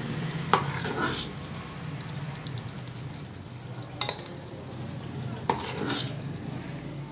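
Metal ladle scooping thick curry out of an aluminium pressure cooker: wet stirring and scraping against the pot, with a few sharp clinks of metal on metal.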